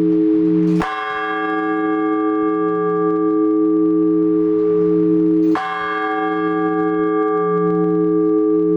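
A large Orthodox church bell struck twice, about five seconds apart. Between strokes its low hum rings on and wavers. These are the slow, measured strokes of the blagovest, rung on one big bell to announce the start of the Liturgy.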